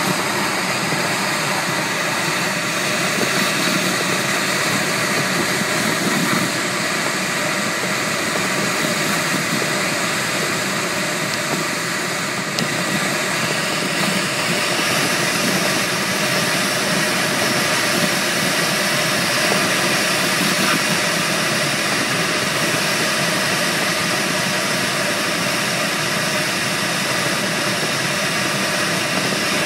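Steady rush of air over a glider in flight, heard inside the cockpit, with the hiss growing brighter about halfway through.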